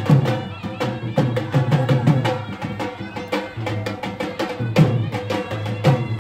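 Folk-style music with a drum and percussion beat over a held note.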